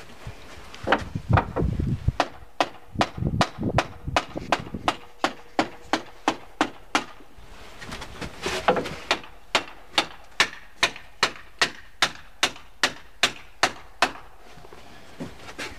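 Hammer striking the wooden railing, likely driving nails: a few heavier thuds at first, then a long steady run of quick blows, about two or three a second.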